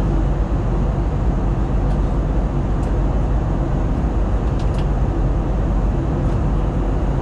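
Steady in-flight cabin noise of an Airbus A321LR: a constant rush of engine and airflow, heaviest at the low end, with a few faint ticks from the cabin.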